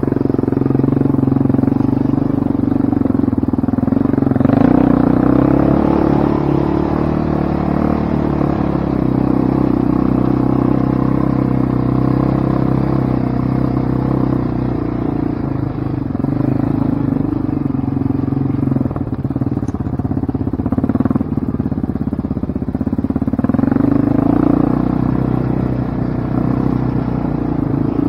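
Quad (ATV) engine running steadily at low to mid revs, rising in pitch briefly about five seconds in and again near the end.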